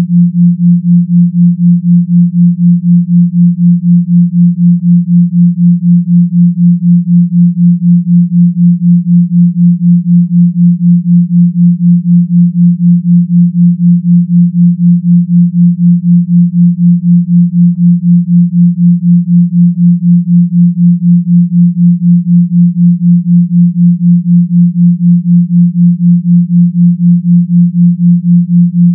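Pure sine tones at 172 Hz and 176 Hz, one in each ear, forming a 4 Hz binaural beat: a steady low hum that swells and fades about four times a second.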